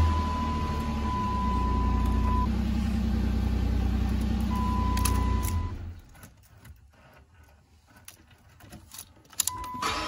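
A 2005 Chrysler 300's 3.5 L V6 running steadily just after cranking on a newly fitted ignition switch, a sign the no-start is fixed. It shuts off about six seconds in, leaving small clicks from the key and switch. A thin steady warning tone from the car sounds at the start, again just before shut-off, and near the end.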